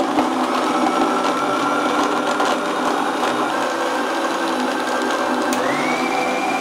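Countertop electric blender running steadily, blending milk, fruit and ice cubes into a smoothie. The motor's pitch rises about five and a half seconds in.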